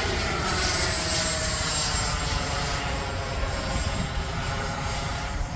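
An FMS F-86 Sabre's 80 mm electric ducted fan whining as the model jet flies past. It is a dense, high whine with a thin steady whistle on top, and its pitch slowly falls before it fades near the end.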